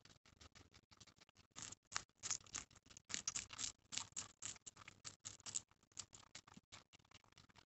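Guinea pigs biting and chewing a raw celery stalk: a rapid run of crisp crunching clicks, busiest and loudest in the middle.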